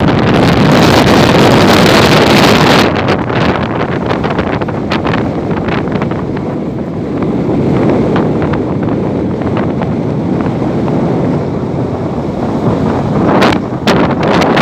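Strong wind buffeting the microphone in gusts, loudest for the first three seconds and again near the end.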